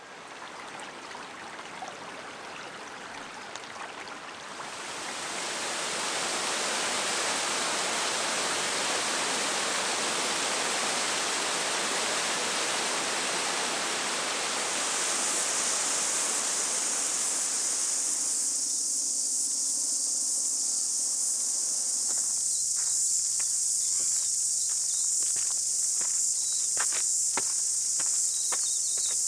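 Water rushing steadily, then a loud chorus of cicadas shrilling in one steady high band from about halfway through. The cicadas carry on alone after the water fades, with a few sharp clicks near the end.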